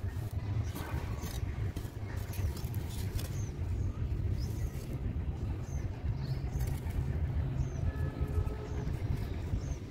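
A steady low rumble underlies everything, with a few gritty scrapes and knocks in the first three seconds as hands handle sand-cement cylinder blocks. Faint short high chirps repeat now and then.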